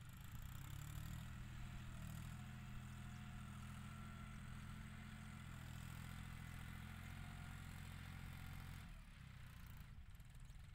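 John Deere 5045 tractor's three-cylinder diesel engine running steadily while the tractor pushes soil with a blade, heard faintly from a distance; the engine note drops away about nine seconds in.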